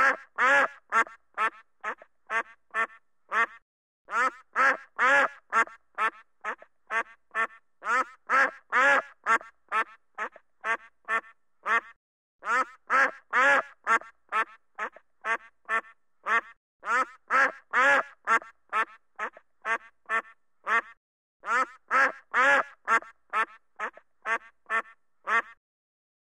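Duck quacking: loud, repeated quacks, about two to three a second, in runs of several calls with short pauses between the runs.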